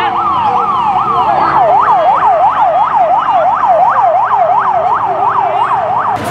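Police van siren sounding a fast yelp, its pitch rising and falling about three times a second. It cuts off abruptly near the end.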